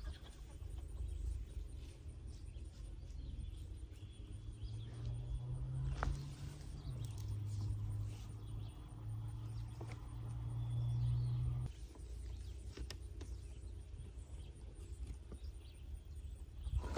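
Carrots being pulled from garden soil by hand: scattered light taps and rustles of soil and foliage. A steady low hum runs from about four seconds in and stops suddenly near twelve seconds.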